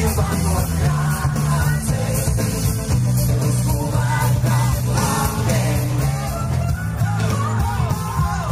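Live pop-rock band playing through a stadium PA, recorded from the crowd: a strong steady bass line under the band, with a voice singing over it.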